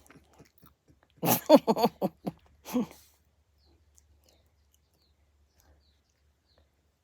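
A cat giving a quick run of short calls with bending pitch, bunched together about a second in.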